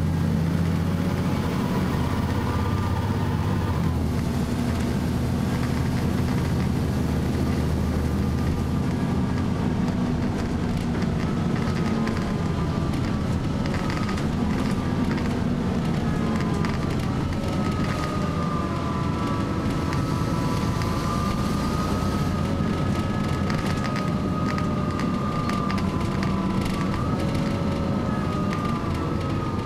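A bus engine running, heard from inside the passenger saloon, with a wavering high-pitched screech over it. The deep engine note is strongest in the first several seconds. The screech grows plainer and stronger from about halfway through.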